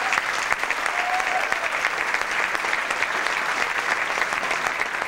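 Audience applauding after a song: dense, steady clapping from many hands.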